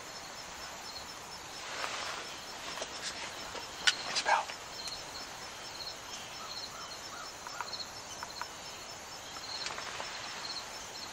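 Quiet outdoor woodland ambience heard from inside a hunting blind: a steady hiss with short high-pitched chirps repeating at an even pace, and a couple of sharp clicks about four seconds in.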